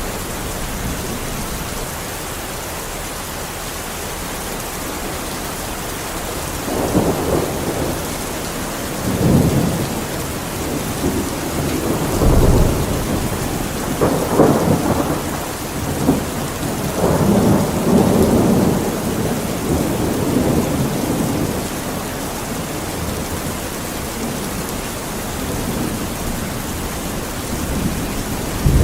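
Steady rain with rolling thunder: a series of rumbling peals from about seven seconds in until about twenty, and another beginning right at the end.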